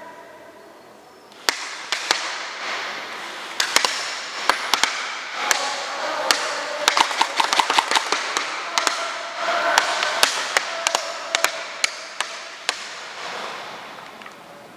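Guns firing in a skirmish: a sudden start about a second and a half in, then many sharp shots in irregular, overlapping strings, several a second, with a steady hiss underneath.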